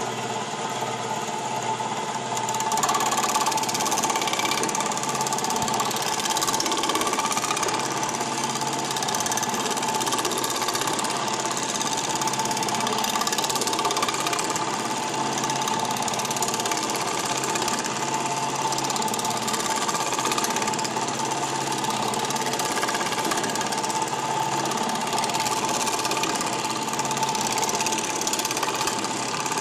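Reciprocating power hammer with a Valori ES2 edge shrink die running steadily, its rapid strokes hammering the edge of a sheet-metal panel to shrink it.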